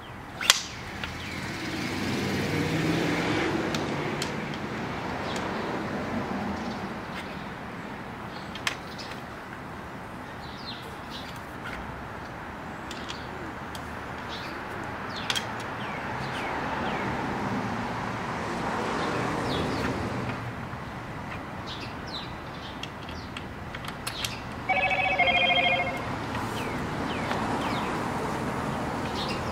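Scattered clicks and rustles as a rollator walker's metal frame and its plastic wrapping are handled, one sharp click about half a second in. Two vehicles pass slowly, one after the other. About 25 seconds in, a brief warbling tone sounds for about a second.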